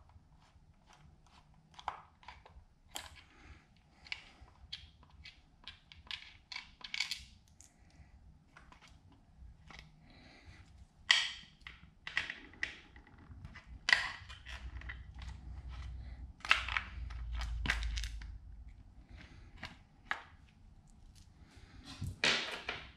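Screwdriver and small metal parts clicking and knocking irregularly against a 1979 Johnson 15 hp outboard's powerhead as parts are unfastened and taken off. A low rumble of handling comes in the middle stretch.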